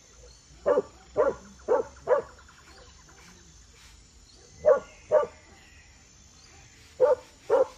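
A dog barking in short, sharp barks, each group evenly spaced: four in quick succession, then two, then two more near the end.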